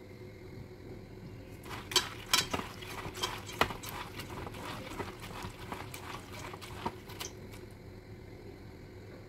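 Hand mixing soaked mung beans in a metal bowl: wet beans clicking and rustling against each other and the bowl in an irregular patter. It starts about a second and a half in and fades out near the end.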